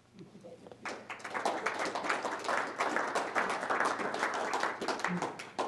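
Audience applause with many hands clapping. It starts faintly, swells about a second in, and dies away near the end.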